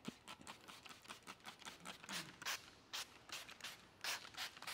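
Hand trigger spray bottle spritzing liquid in quick, irregular short sprays, mixed with the crackle of a sheet of paint protection film being handled and lifted.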